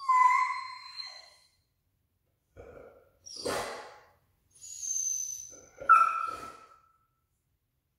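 Dog whining: a loud, drawn-out whine at the start, a higher thin whine about five seconds in and another short whine just after. A short breathy noise comes from the dog in between.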